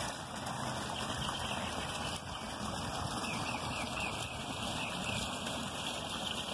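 Steady splashing and trickling of water from a garden fish pond's small waterfall and fountain jet.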